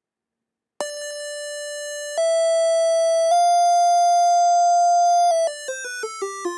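Kinect-controlled digital theremin built in Processing, playing a buzzy synthesized tone that jumps between separate notes instead of gliding. About a second in, a held note begins, steps up twice to a long high note, then near the end breaks into a quick run of short notes falling in pitch.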